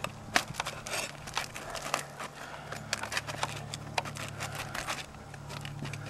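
Flat pry bar scraping and prying under asphalt roof shingles to work out roofing nails, making irregular sharp clicks and scrapes as the shingles crackle. A steady low hum runs underneath.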